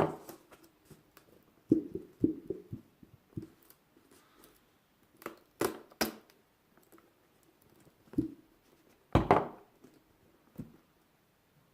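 Irregular clicks, taps and knocks of objects being handled and set down, with a quick run of taps about two seconds in and the loudest knock near the end.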